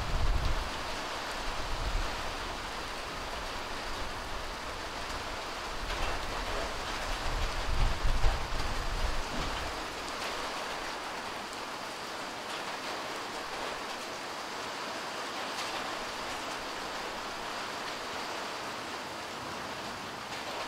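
Steady rain hiss as light rain falls on parked cars and wet ground. Deep low rumbles come and go in the first half, loudest about eight seconds in, then fade.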